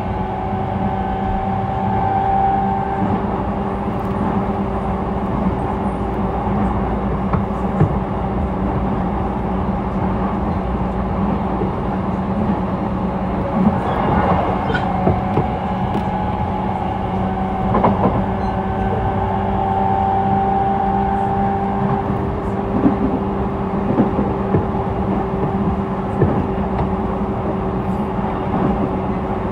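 Running sound inside a JR East E233 series 0 motor car: the MT75 traction motors and Mitsubishi IGBT-VVVF inverter hum at a steady pitch over the rumble of the wheels on the rail. A higher tone rises and fades twice, and wheel knocks, likely at rail joints, come now and then.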